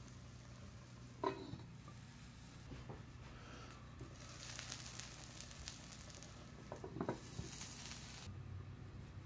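A metal lid clinks sharply on a frying pan about a second in, with a few more light knocks near seven seconds. In between, a faint crackling sizzle from the cake batter cooking in the hot pan rises for about four seconds.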